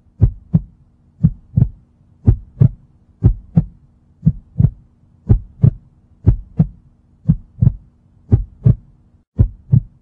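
Heartbeat sound effect: a steady lub-dub double thump about once a second, over a faint low hum.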